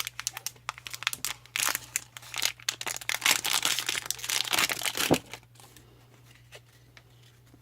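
Packaging being torn open and crinkled by hand, a dense run of rustles, crackles and rips that stops about five seconds in. A faint steady low hum sits under it.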